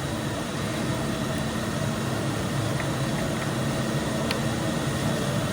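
A steady machine hum with a constant low pitch, with a couple of faint ticks partway through.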